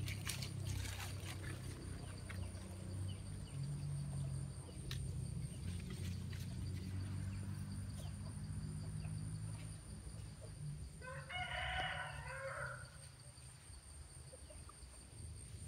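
A single pitched animal call, about a second and a half long, about eleven seconds in, over a steady low rumble with a few faint clicks.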